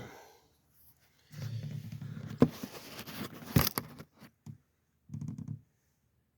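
Rattling and rustling from small metal parts and tools being handled, with two sharp metallic clicks, then a brief rattle near the end.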